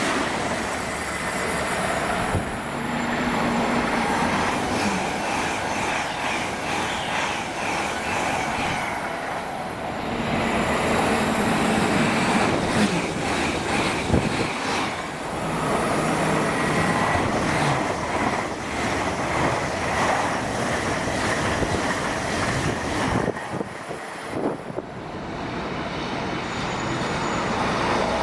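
Express passenger trains passing close at speed, one after another: the steady rushing noise of wheels on rail and air, with scattered sharp clicks. Each pass cuts abruptly to the next every several seconds.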